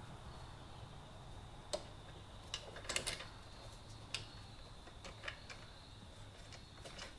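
Scattered small metallic clicks and taps of a hand tool and a nut and bolt being fitted to a motorcycle's rear brake stabilizer bar. One click comes about two seconds in, a quick cluster near three seconds, another just after four seconds, and fainter ones later. A faint steady hum runs under them.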